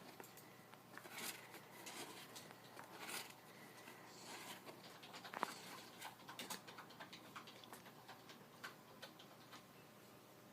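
Near silence: room tone with faint, scattered clicks and soft rustles, no steady rhythm.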